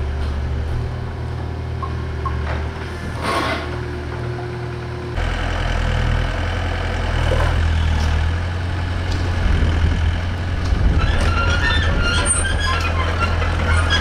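Diesel engines of a compact excavator and a small flatbed truck running at idle, a steady low drone that changes abruptly about five seconds in. Light clinking and rattling join it in the last few seconds.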